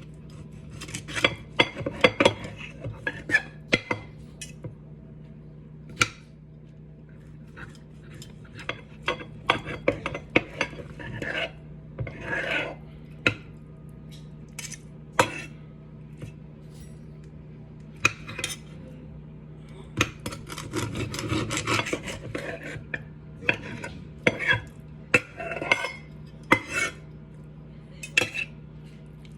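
Kitchen utensils and dishes clattering, clinking and scraping in short irregular bursts, as with stirring and handling bowls while preparing food, over a steady low hum.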